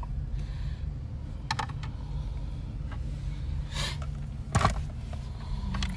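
Steady low rumble of a car's cabin, its engine running, with a few scattered short clicks and knocks from handling inside the car, the loudest about four and a half seconds in.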